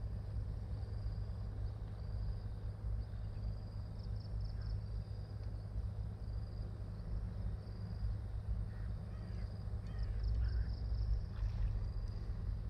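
Outdoor riverside ambience: wind rumbling on the microphone, with an insect's thin high trill repeating about once a second. A few short bird calls come in the second half.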